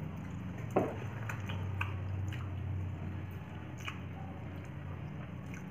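Wet mouth sounds of instant noodles being eaten straight off a plate without hands: scattered slurps, smacks and chewing, with one louder smack about a second in. A steady low hum runs underneath.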